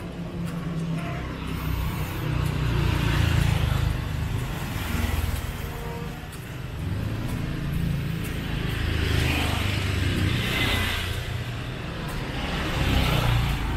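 Street traffic on a narrow lane: engine rumble and tyre noise swelling and fading as vehicles pass, with a motor scooter approaching and passing close near the end.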